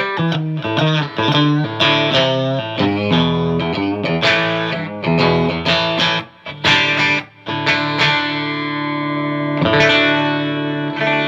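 Electric guitar played through a Marshall JVM210 combo amp, on the partscaster's coil-tapped bridge humbucker for a single-coil tone: quick picked notes and chord changes, ending on a chord left ringing for the last few seconds.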